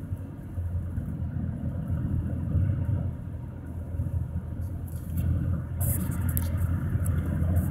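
Steady low road and engine noise inside a moving car's cabin, with a few light clicks about six seconds in.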